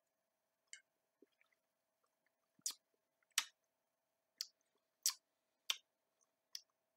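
Wet lip smacks and tongue clicks of a person tasting a mouthful of cherry soda, about seven short smacks spaced a half-second to a second apart.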